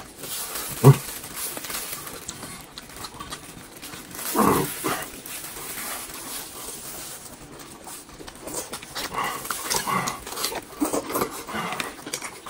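Close-up eating sounds of a man gnawing and chewing braised meat held in his gloved hand: wet smacking and sucking, breathing through the nose, a short thump about a second in and a brief hum from his voice around four and a half seconds in. The smacking grows busier in the last few seconds.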